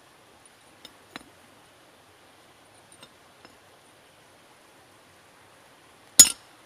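A few faint metallic clinks as a steel punch is set on the nail-header bar, then one sharp hammer blow on the punch near the end, driving it into the bar.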